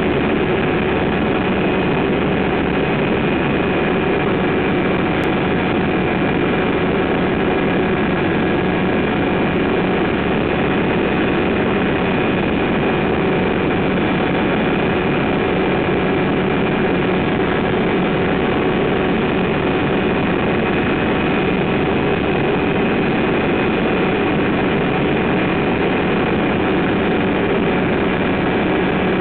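Pou-du-Ciel (Flying Flea) light aircraft's engine and propeller running steadily in cruise flight, heard from the cockpit: a loud, unchanging drone with a few held steady tones.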